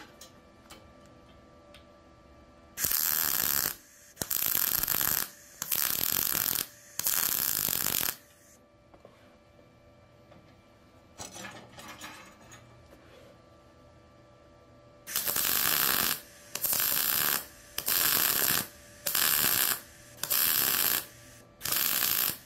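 MIG welder arc on steel, crackling in short trigger-pulled bursts of about a second each: four in a row a few seconds in, then six more near the end, with brief pauses between. This is trigger (stitch) welding, laying the weld as a series of short pulses.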